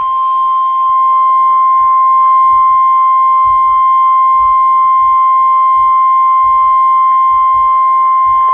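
NOAA Weather Radio's steady 1050 Hz warning alarm tone sounding from a weather radio receiver. It signals that a severe thunderstorm warning message is about to be broadcast. The tone swells louder during the first second, then holds one loud, unchanging pitch.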